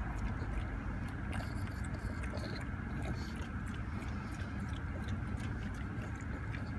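A French bulldog–pug mix chewing fresh garden peas, with irregular sharp crunches. Under it runs a steady low rumble from inside the car.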